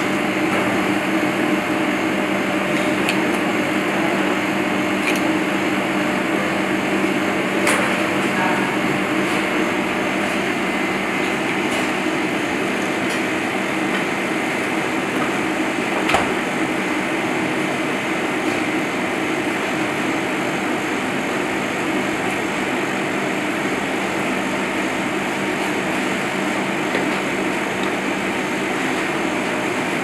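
Steady drone of commercial kitchen ventilation, with a low hum under a rush of air. A few light knife taps on a plastic cutting board, the clearest about halfway through.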